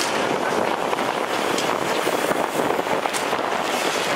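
Diesel engines of buses driving past close by, a steady dense noise with scattered sharp clicks.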